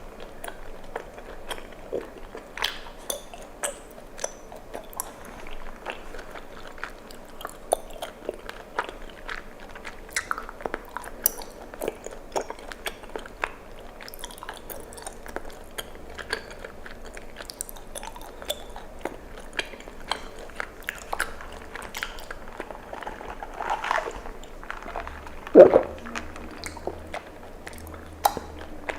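Close-mic mouth sounds of chewing bubble tea tapioca pearls: a steady run of sticky clicks and smacks, with one louder sound falling in pitch near the end.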